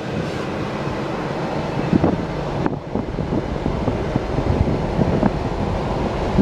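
Steady road noise of a moving car with wind rushing over the microphone, with frequent short crackles and pops from the wind.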